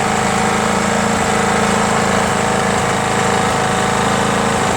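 Briggs & Stratton Quantum single-cylinder engine on a Craftsman push mower running steadily at a constant speed.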